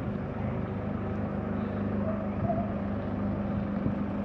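Engine of a farm loader running steadily as the machine drives slowly forward carrying a heavy concrete wall panel on its forks.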